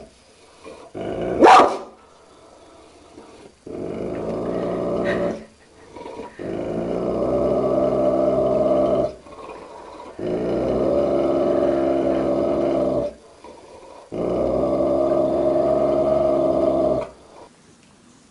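Large mastiff-type dog growling at its own reflection in a mirror: four long, low warning growls of about three seconds each, with short pauses between them. One short, sharp bark comes about a second and a half in.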